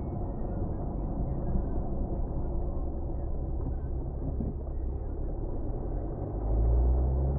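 Vehicle driving: a steady low engine and road rumble that grows louder about six and a half seconds in.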